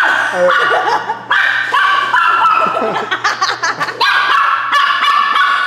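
Small chihuahua-type dog barking over and over in high-pitched yaps and drawn-out whining cries.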